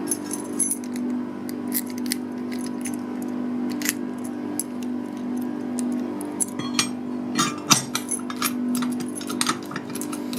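Keys jangling on their ring and sharp metallic clicks as a key works a 73 mm round padlock (puck lock) and it is locked again, with a dense run of clicks in the last few seconds. A steady low hum runs underneath.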